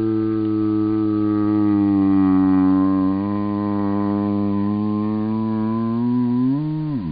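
A cat's yawn, heavily slowed down, heard as one long, deep droning tone that sags a little in pitch midway and then drops away sharply in a fast downward glide near the end.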